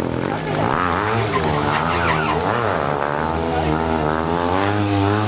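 Stunt motorcycle engine revving up and down again and again, its pitch rising and falling in quick waves over a steady low drone.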